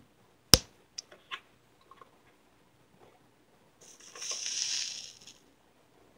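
Handling sounds at a soldering bench as a soldering iron and a heavy-gauge wire are worked into an EC5 connector: one sharp click, a few light ticks, then a short hiss lasting about a second and a half.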